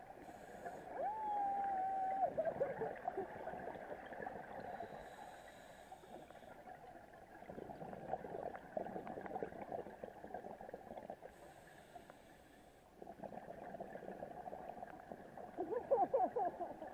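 Scuba regulator breathing underwater: a brief hiss on each inhale, about every six seconds, followed by long gurgling streams of exhaled bubbles. A short steady tone sounds about a second in, and a loud bubble burst comes near the end.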